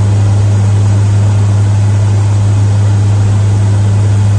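Hurricane hunter aircraft's engines running: a loud, steady low hum over a constant rushing noise.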